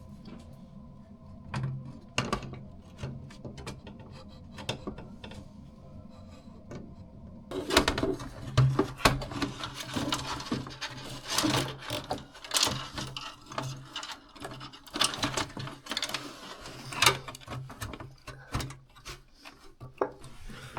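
Irregular clicks, taps and light clatter of computer parts being handled and fitted into a desktop case while the new motherboard is installed. The knocks get busier and louder from about seven seconds in.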